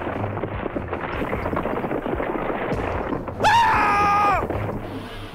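Loose dry sand pouring and tumbling down in a steady grainy rustle onto a toy truck. About three and a half seconds in, a high-pitched cry is held for about a second; it is the loudest sound.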